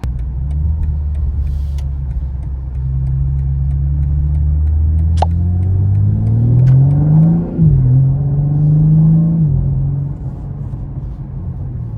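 BMW M4 Competition's twin-turbo straight-six running with a steady low drone, then accelerating: the note rises, dips briefly at a gear change about seven and a half seconds in, holds, and eases off near the end.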